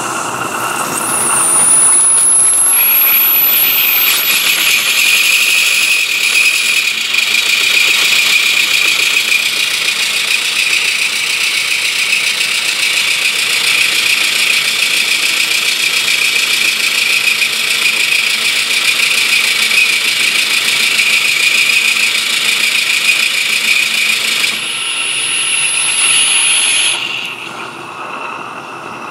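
Live-steam 16mm-scale Baldwin 8-12D Mogul chassis running fast on the bench under steam from a stationary boiler: a rapid, continuous exhaust hiss and clatter of the rods and valve gear, with a thin rising whistle in the first few seconds. It builds up over the first two seconds, eases about 24 seconds in and drops away about 27 seconds in as the throttle is closed.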